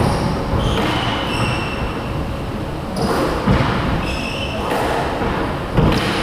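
Squash rally: the ball struck by rackets and smacking off the court walls several times, about once a second, with sneakers squeaking on the wooden floor as the players run.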